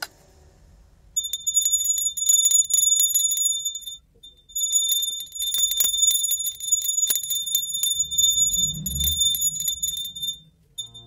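Small brass puja hand bell (ghanti) rung rapidly and continuously, a bright ringing with fast clapper strikes. It starts about a second in, breaks off briefly around four seconds, then rings on until shortly before the end.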